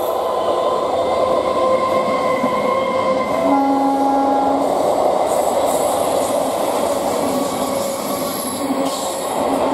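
Nine-car BEML electric multiple unit train running on the rails, a loud steady rumble with a whine held through it. About three and a half seconds in a brief steady tone sounds for just over a second.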